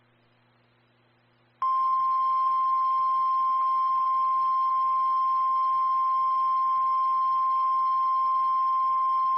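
Emergency Alert System warning tone of the NOAA Weather Radio kind: a single steady tone near 1050 Hz with radio hiss around it, starting about a second and a half in after a faint hum. It signals that a severe thunderstorm warning follows.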